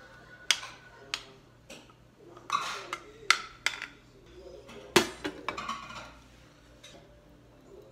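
Metal spoon scraping and clinking against an oval ceramic serving dish and a stainless steel rice bowl, a run of sharp clinks and scrapes, the loudest about five seconds in.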